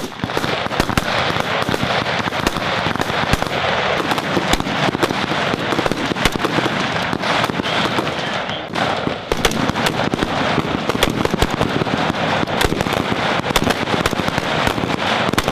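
Many rifles firing on a range at once, shots overlapping in a dense, irregular string, with a brief lull about nine seconds in.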